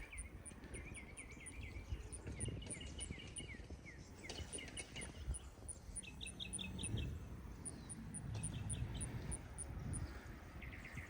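Insects chirping in a very high, even pulse of about four beats a second, in runs, with a bird's short, quick series of chirped notes several times over. An uneven low rumble runs underneath.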